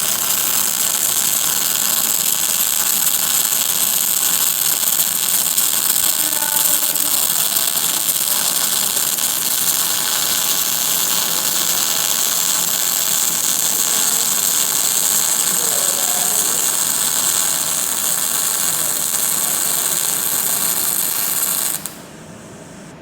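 Electric welding arc crackling and hissing steadily during a weld, cutting off abruptly near the end as the arc is broken.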